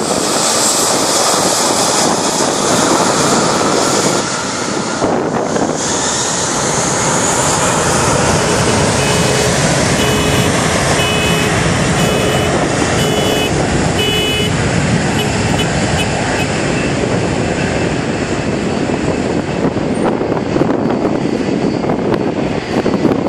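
Airbus A340 jet airliner's four engines at takeoff thrust at the start of its takeoff roll: a loud, steady roar of jet blast. Partway through, a short beep repeats about once a second, six times.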